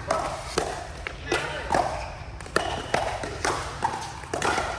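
Pickleball rally: paddles striking the plastic ball in a quick, irregular series of sharp pops with a hall echo, over background chatter.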